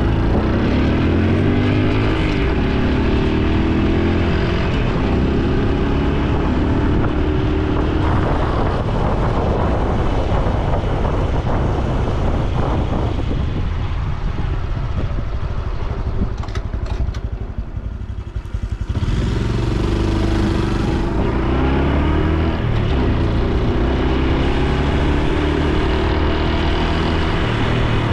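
Honda Super Cub C125's single-cylinder 125 cc engine and exhaust while riding, its pitch rising again and again as it accelerates through the gears. A little past halfway it eases off and goes briefly quieter, then pulls away and climbs through the gears again.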